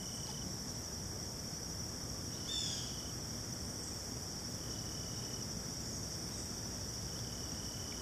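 Steady, high-pitched insect chorus, with a brief falling chirp about two and a half seconds in.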